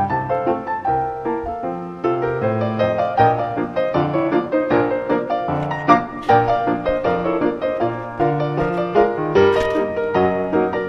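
Background piano music: a continuous run of melodic notes at a steady level.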